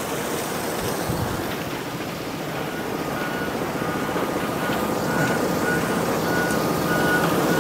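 Steady rushing noise of a sand-washing plant running, with water pouring through it. From about three seconds in, a heavy machine's reversing alarm beeps about one and a half times a second.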